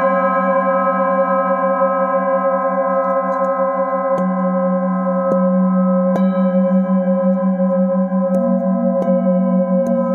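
Metal singing bowls ringing together, struck lightly with a felt-covered mallet about five times, each strike adding fresh tones over the sustained ring. The lowest hum wobbles in a slow, steady beat.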